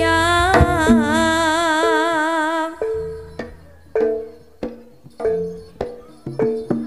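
Javanese jaranan band music between sung lines: a melody held with a wide vibrato for the first two and a half seconds, then sparse, sharp hand-drum strokes mixed with short pitched notes and low thumps.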